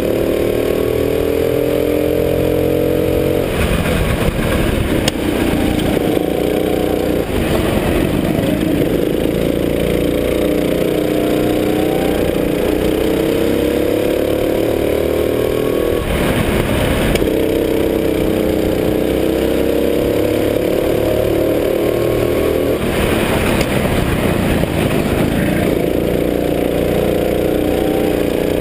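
Sodi rental go-kart engine heard onboard at racing speed, its note rising as it accelerates along the straights and falling back as it lifts for corners, over and over. Several times the engine is covered by a brief burst of rushing, rattling noise.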